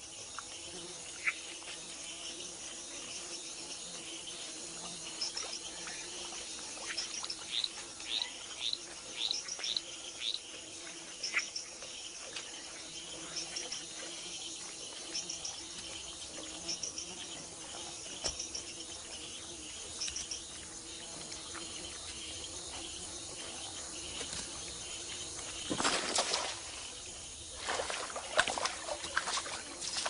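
Tropical forest ambience: a steady chorus of insects with repeated short bird calls and trills, mostly in the first half. Near the end come a few loud, sudden noises that stand out above the chorus.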